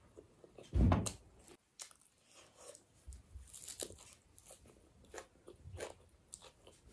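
Close-up eating sounds of a person chewing and biting crunchy food taken by hand, in scattered short crackles. There is one louder dull thump about a second in.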